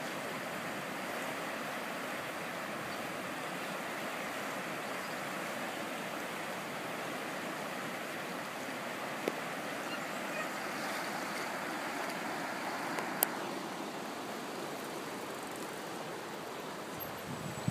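Floodwater rushing over a submerged river weir: a steady rushing noise, with a single sharp click about thirteen seconds in.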